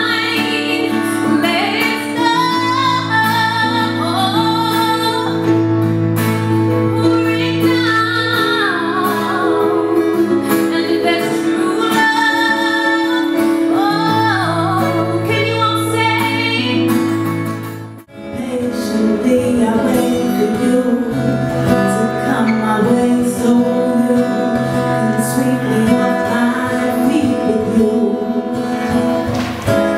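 Live female vocals over acoustic guitar and keyboard chords. About eighteen seconds in the music cuts off abruptly and switches to another live act with strummed acoustic guitar.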